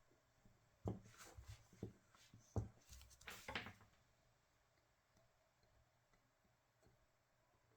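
A few light clicks and knocks from hands working on the e-bike battery's connector parts over the first four seconds, then near silence.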